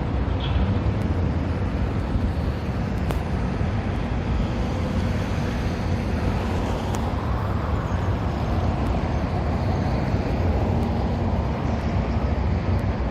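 Steady low engine rumble with a faint constant hum.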